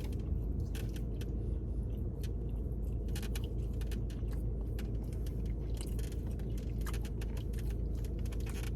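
Eating sounds: chewing, with many small scattered clicks and rustles of utensils and food container, over a steady low hum inside a car.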